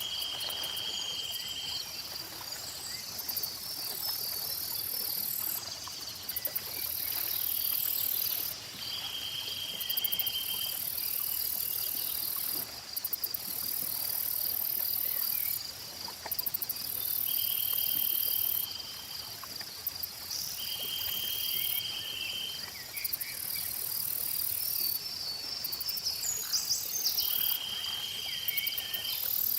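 Chorus of insects: a steady trilling with a very high buzz that switches on and off every few seconds. A lower buzzy call about a second long repeats about five times, and a few short bird chirps come near the end.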